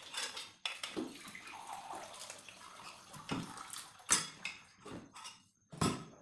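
Metal spoon stirring and ladling liquid dal in an aluminium pressure cooker: watery sloshing for the first few seconds, with several sharp metal clinks and knocks against the pot.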